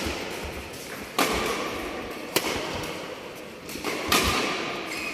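Badminton rally in a large echoing hall: sharp cracks of racquets striking the shuttlecock about every second, the loudest a smash about four seconds in, with low thuds of players' feet on the court.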